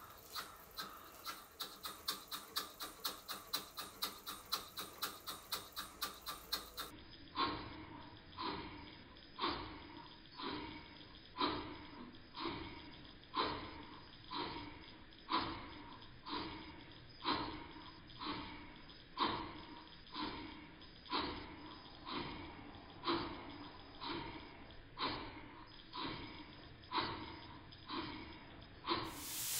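Stuart S50 model steam engine, single-cylinder, running with a regular exhaust puff: several quick beats a second at first, then, after a sudden change about seven seconds in, slower beats about one a second. The valve timing is freshly set and the beats are very even at both ends of the stroke.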